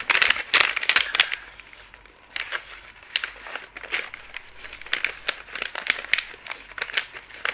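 Close rustling and crackling handling noise on the microphone, with scattered sharp clicks, loudest in the first second or so: hands moving against the recording device.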